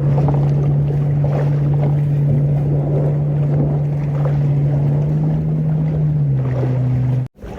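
Boat's outboard motor running steadily under way, a low steady hum over rushing wind and water noise. The engine note drops a little about six seconds in, as if the throttle is eased.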